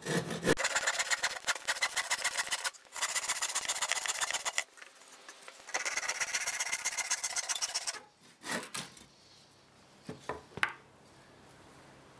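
Handsaw cutting through a short piece of timber: fast back-and-forth strokes in three runs with short pauses. It ends with a few sharp wooden knocks near the end.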